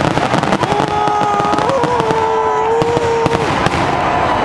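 Aerial fireworks crackling in a dense, rapid run of pops, glittering crackle shells bursting overhead. From about a second in, a long held pitched tone sounds over the crackle.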